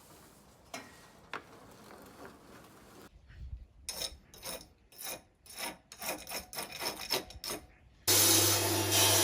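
Repeated hand scraping or rubbing strokes, about two or three a second, after a few faint clicks. About eight seconds in, a much louder steady machine hum cuts in abruptly.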